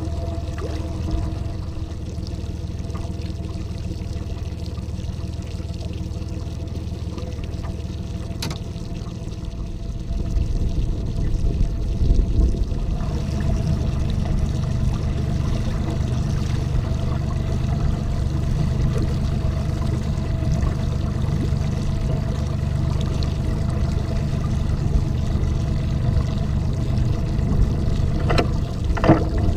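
Water lapping and sloshing against a bass boat's hull over a steady low motor hum. The low rumble gets louder about ten seconds in.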